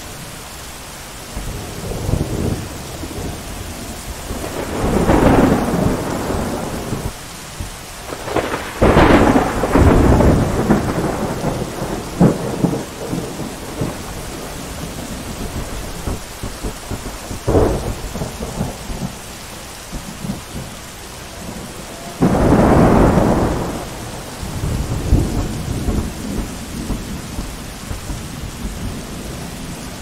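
Thunderstorm: steady rain with several rolls of thunder rumbling over it. There are big peals about 5, 9 and 22 seconds in, the last starting suddenly, and shorter sharp cracks between them.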